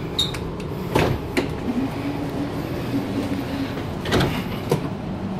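Electric sliding interior door of a Sydney Trains Waratah carriage working: a clunk about a second in, a steady hum for about two seconds as the door moves, and more knocks near the end, over the steady low hum of the stationary train.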